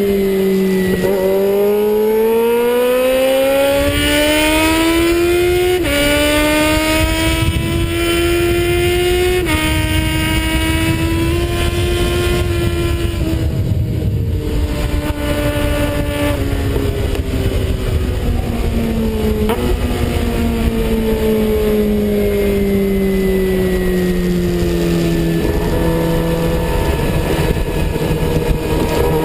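Suzuki Bandit 650 S inline-four engine heard from a handlebar-mounted camera at speed on track. It pulls hard with a rising note through the first few seconds, with small jumps at gear changes. Through the second half the note falls slowly as the rider comes off the throttle. Wind rushes over the microphone throughout.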